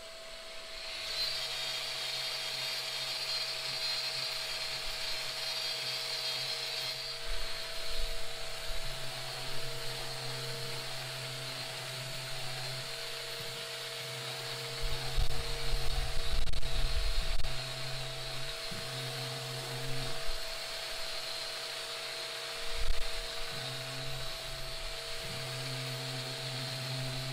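Random orbital sander with a dust-extraction hose, starting about a second in and then running steadily with a whine and hiss as it sands a plywood console. A louder, rougher stretch comes around the middle.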